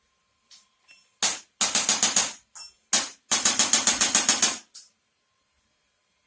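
A rapid series of sharp taps, about eight a second, in two runs of about a second each, with a few single taps before, between and after.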